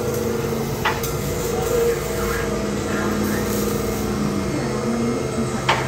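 Steady mechanical drone of shop machinery, with two short sharp clicks, one about a second in and one near the end.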